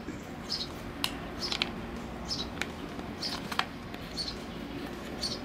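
Short high chirps, as of a small bird, repeating about once a second over a steady low hum, with a few light clicks as the fiberglass glove piece is handled.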